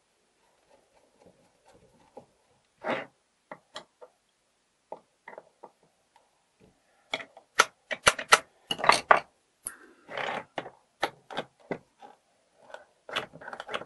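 Old mortise door lock being worked by hand: a few faint scrapes and clicks as a cover screw is turned in, then, from about halfway, a quick run of sharp metal clicks and clacks as the follower is turned and the latch bolt snaps back and forth under its renewed spring.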